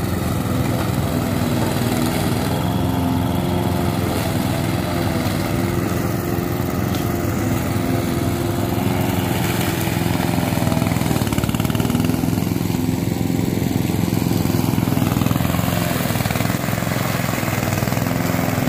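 Walk-behind rotary lawn mower with a small petrol engine running steadily while cutting tall, thick grass; the engine note wavers a little as the blade takes the load.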